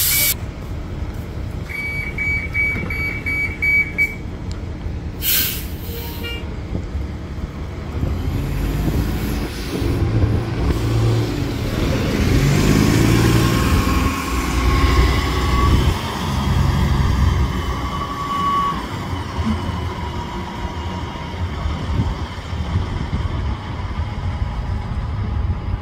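City transit bus pulling away from a stop: a run of quick beeps for about two seconds, a short hiss of air, then the engine building up as the bus passes close, with a steady whine, and fading as it drives off.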